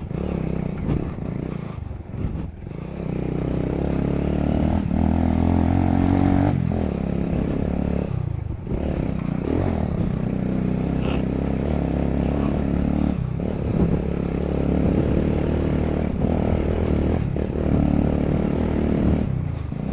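Motorcycle engine running while being ridden, its pitch climbing and falling with the throttle, with a few brief dips where the throttle is shut off.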